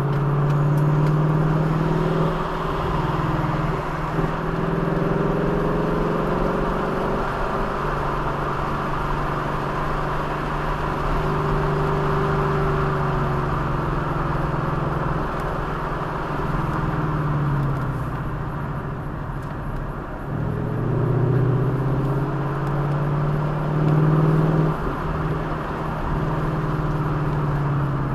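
A vehicle engine running under way, its pitch climbing and falling repeatedly, with a few sudden drops in pitch, over steady road and wind noise.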